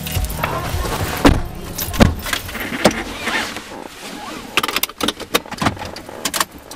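Doors of a Toyota car thumping shut as people get in, two heavy slams about a second apart, with seat and clothing rustle. Near the end, a quick run of light rattling clicks from a bunch of keys on a lanyard jingling at the ignition.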